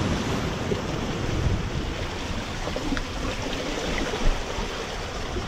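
Ocean surf washing against the rocks of a jetty, with gusts of wind buffeting the microphone.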